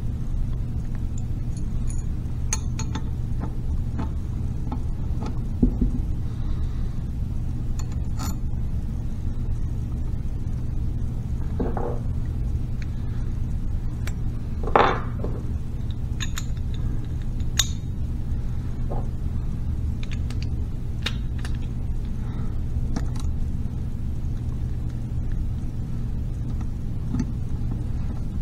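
Light metal clicks and clinks of tools and parts as a shift arm is fitted and its bolt tightened with a ratchet wrench on a Harley five-speed transmission, with two brief ringing clinks near the middle. A steady low hum runs underneath.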